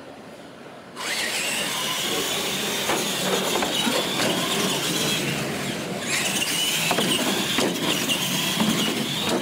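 Two R/C monster trucks launching off the start line and racing side by side. A high motor and gear whine over tyre noise starts about a second in and climbs, drops away about six seconds in, then climbs again.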